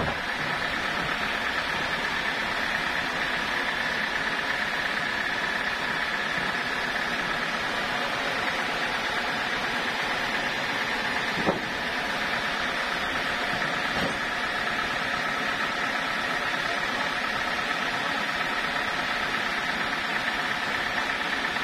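Band sawmill machinery running steadily without cutting: an even hum with a high whine on top. A single sharp knock comes about eleven and a half seconds in.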